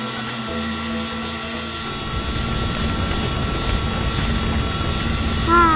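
Cartoon sound effect: a low rumble that starts about two seconds in and grows louder, while the toy boat bursts into flames from its top. Near the end a cartoon voice gives a short exclamation that rises in pitch.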